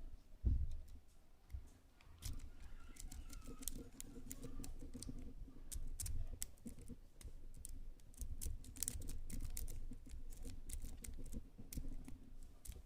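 Rapid, irregular metallic clicking of a triple-peak rake scrubbed in and out of an Abus pin-tumbler padlock's keyway under light tension, the pins chattering as the lock is raked open. A single thump about half a second in, before the clicking starts about two seconds in.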